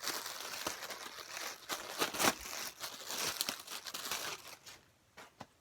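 Plastic packaging crinkling and rustling as a T-shirt is unwrapped and handled, stopping about four and a half seconds in.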